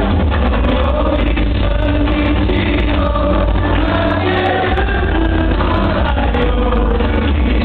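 Loud amplified music with a group of voices singing together over a strong bass line.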